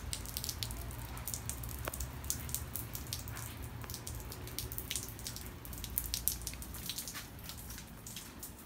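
Rain dripping: many separate drops landing close by as sharp, irregular ticks, over a low steady rumble.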